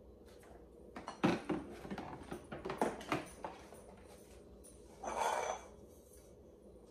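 Light clicks and knocks of plastic and metal lawn-mower parts being handled during assembly of an electric mower's handle, a quick irregular run of them over a couple of seconds, then a brief rustle about five seconds in.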